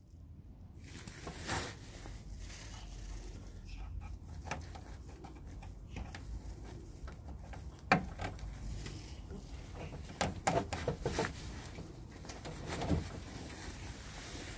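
A rubber lower radiator hose being worked by hand onto its radiator outlet: scattered clicks and knocks, the sharpest about eight seconds in and a cluster a couple of seconds later, over a low steady hum.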